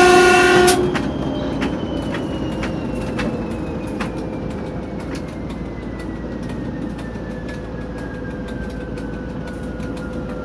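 A TEP70 diesel locomotive's horn gives a blast about a second long at the very start. The locomotive's 16-cylinder diesel engine then runs steadily with its turbocharger whistle falling slowly in pitch as it winds down. Evenly spaced clicks of the wheels over rail joints come underneath.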